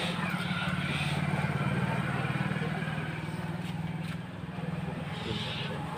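A low, steady engine drone with a fast even pulse, easing off slightly about four seconds in.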